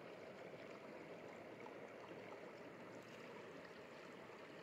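Faint, steady rush of river water flowing.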